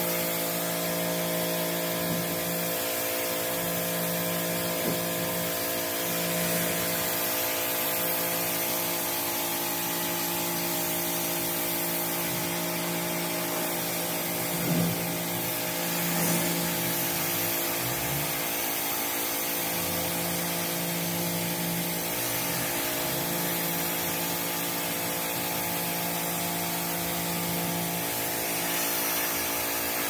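WAP Combate 2600 electric pressure washer running steadily, its induction motor and pump giving a steady hum under the hiss of the high-pressure water jet striking a concrete floor.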